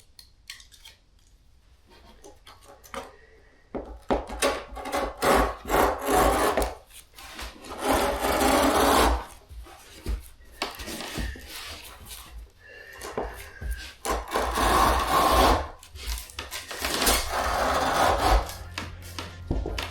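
Strips of old synthetic rug being cut by hand, a run of rasping, scratchy cutting strokes with short pauses between, starting a few seconds in.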